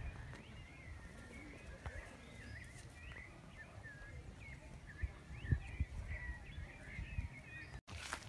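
Small birds chirping in many short calls over faint rural outdoor background noise, with a few low thumps a little past halfway.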